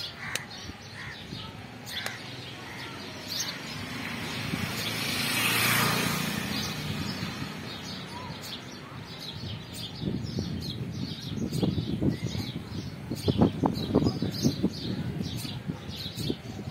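Many small birds chirping, with short high calls throughout. A whooshing swell of noise rises and fades around the middle, and a run of louder, lower, sharp sounds comes in the second half.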